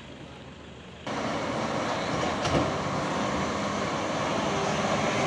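Diesel engine of a flatbed truck running hard, under load on a steep muddy, unpaved climb; it comes in suddenly about a second in, after a quieter stretch of distant vehicle noise. A single sharp knock sounds about two and a half seconds in.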